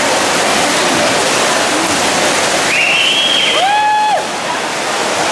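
Loud echoing din of an indoor pool during a freestyle race: swimmers splashing and spectators cheering. About three seconds in, two brief high-pitched calls stand out above it.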